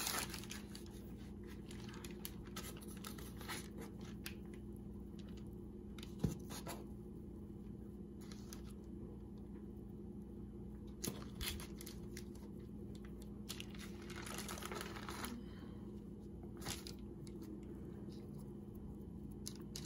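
Faint rustling and crinkling of parchment paper, with scattered light taps, as hands roll up and pinch stromboli dough on it. A steady low hum runs underneath.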